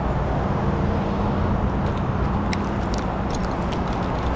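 Engine running steadily at low speed, with a few light clicks partway through.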